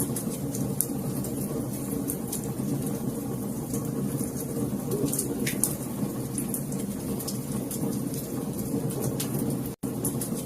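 Wood fire crackling: a steady low rumble of flames with frequent sharp pops and snaps. The sound cuts out for an instant near the end.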